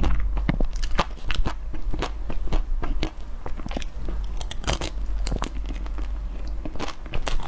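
Close-miked biting and chewing of a frozen ice cream bar's hard dark coating: a run of sharp, crackling crunches.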